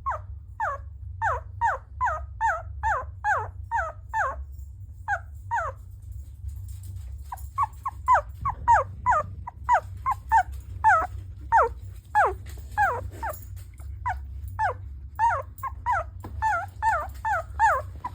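Sleeping puppy whimpering in a dream: a run of short, high cries, each falling in pitch, about two or three a second, with a pause of a second or two midway. The owner takes the cries for a bad dream. A steady low hum lies underneath.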